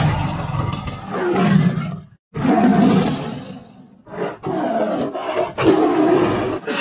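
Tiger roaring: three long, rough roars in a row, the first cut off by a brief silence about two seconds in.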